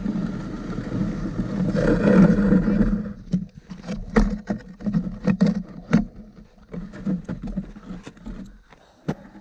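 Steady rushing noise of moving over a packed snow trail behind a team of Samoyed sled dogs, stopping about three seconds in. It is followed by a series of sharp crunches of feet in the snow as the stopped team shuffles.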